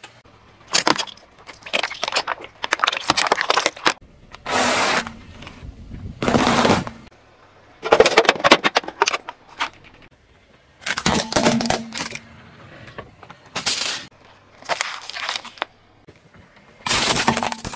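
A car tyre rolling over and crushing a run of different objects, heard as about ten short bursts of crunching and crackling with quieter gaps between.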